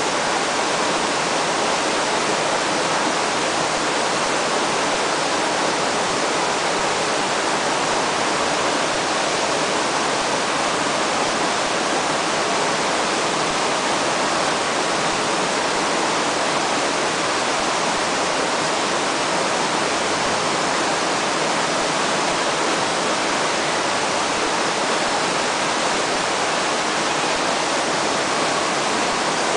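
River current flowing: a steady, even noise of running water that holds without a break.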